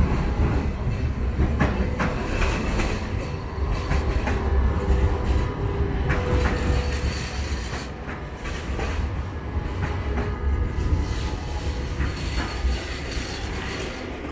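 Two low-floor trams passing close by one after the other: a steady heavy rumble of wheels on rail, with sharp clacks over the track and a faint high wheel squeal. The rumble eases off near the end.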